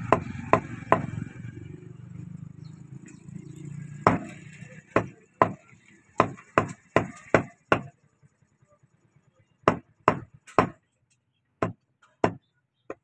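A knife blade chopping beef into small cubes, each stroke knocking sharply on a wooden chopping block. There is a quick run of strokes between about four and eight seconds in, and spaced single strokes before and after it.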